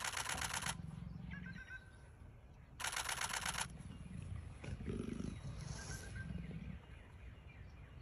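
Two bursts of rapid-fire camera shutter clicks, each lasting under a second, about three seconds apart, with a softer low rumble in between.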